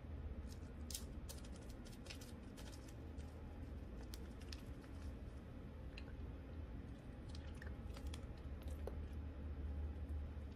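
Faint, irregular clicking of a computer keyboard and mouse, over a low steady hum.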